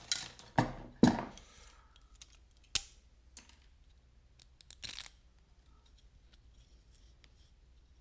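Sharp clicks and snaps of hard PLA plastic pieces being handled, loudest in the first second and a half, then a few sparse clicks until about five seconds in.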